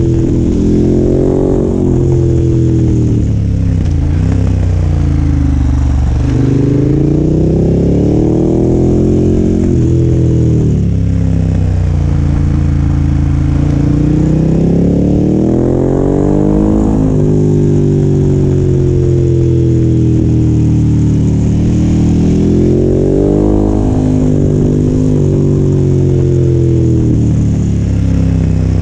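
KTM 1290 Super Adventure R's V-twin engine and exhaust heard from on the moving bike, the engine note rising under acceleration and falling off again several times over.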